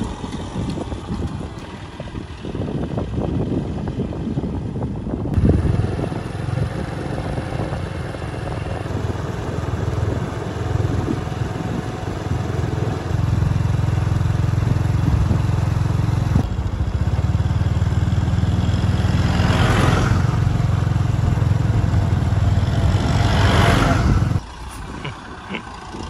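A motor vehicle's engine running steadily at a low hum, after a few seconds of rushing wind-like noise, and cutting off abruptly near the end.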